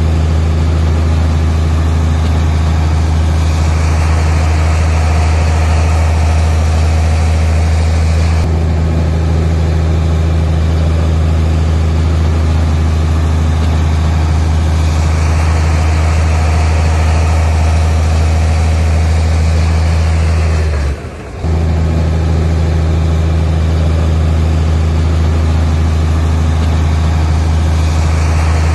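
Heavy diesel engine of earthmoving machinery running steadily with a deep, even drone; a rougher, higher-pitched rasp swells up twice, as if under load, and the sound drops out briefly about three-quarters of the way through.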